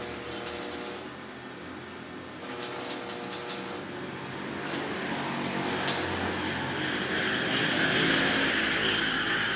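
Electric arc welder welding steel rebar: a steady buzzing hum with a sizzling hiss that grows louder over the second half, and a few sharp clicks.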